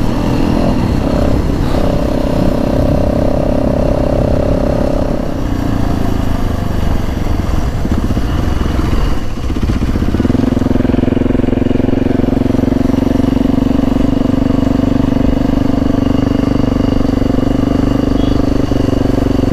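Dirt bike engine running while being ridden, a steady higher note for a few seconds that eases off around six seconds in and settles into a steady lower note for the second half.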